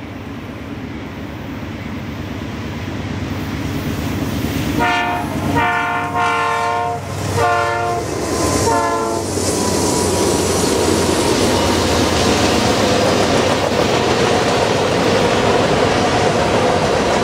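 A freight train led by two GE C44-9W diesel locomotives approaches, its rumble growing louder. The lead locomotive's air horn sounds several blasts from about five to nine seconds in. Then the train of grain hopper cars rolls past with steady wheels-on-rail clatter.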